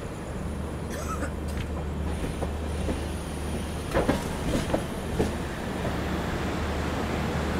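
Indian Railways express passenger train rolling slowly out of a station: a steady low rumble from the coach, with a few sharp clacks from the wheels and coach fittings about four to five seconds in. A thin high whine joins about two seconds in.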